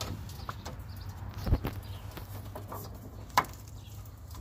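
A rubber coolant hose being worked loose at a radiator fitting, with scattered small clicks and rubbing. There is a dull knock about a second and a half in and a sharp click near the end, over a low steady hum.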